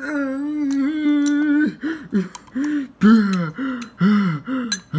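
A voice wailing in a cartoonish character voice: one long held cry for about a second and a half, then a run of short rising-and-falling wails.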